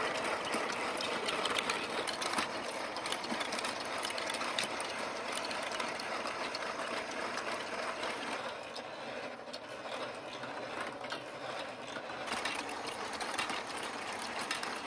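3D-printed plastic marble machine running: steel balls clattering and clicking along plastic tracks and a stepped lift, with its plastic gears and chain drive turning. A dense, steady rattle of fine clicks, briefly a little duller past the middle.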